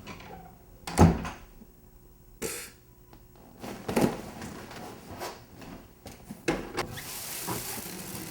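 Several separate thumps and knocks, the loudest about a second in, then a steady hiss near the end.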